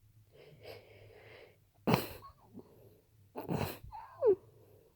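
A person sniffing in through the nose, then two sharp bursts of breath and a short squeaky wheeze that falls in pitch. The nose is being tickled with a rose to set off sneezing.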